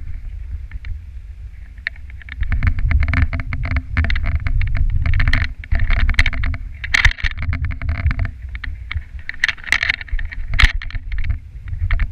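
Dog sled gliding over a packed snow trail: a continuous rumble and scraping hiss from the runners, with frequent sharp clicks and knocks as the sled jolts along.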